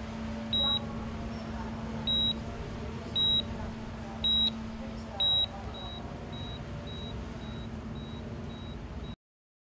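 Electronic beeping: five short, high single-tone beeps at irregular intervals about a second apart, then a quicker run of fainter beeps. A steady low hum and faint voices lie underneath, and all sound cuts off abruptly near the end.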